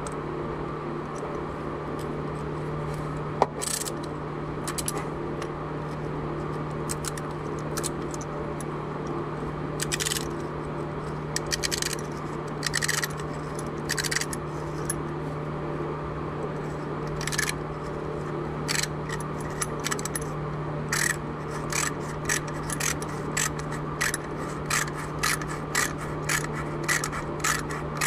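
Metal hand tool scraping and clicking inside the water-jacket drain hole of an old Ford engine block, digging out sludge that has built up in the cooling system. The scratchy strokes come sparsely at first, then quickly one after another in the last third, over a steady low hum.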